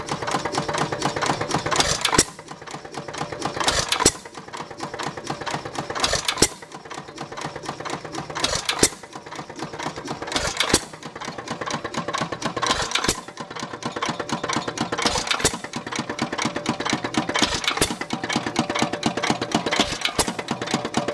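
1915 Root & VanDervoort 1.75 hp hit-and-miss engine running, with a sharp firing stroke every two seconds or so. Between firings there is a quick, even clatter from its moving parts while the flywheels coast on without firing.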